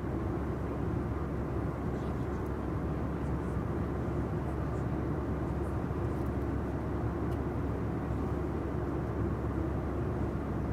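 Steady low rumble of a moving vehicle, starting abruptly and holding level throughout.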